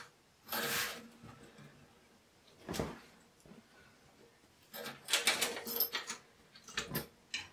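Hands working a metal rack-mount case: a short scraping rush about half a second in, a single click, then a flurry of clicks and rattles as a key works the front door's lock and the door panel is freed.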